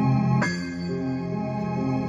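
Background hip-hop music in an instrumental stretch without vocals: sustained chords over a low note pulsing about four times a second, with a sudden change about half a second in.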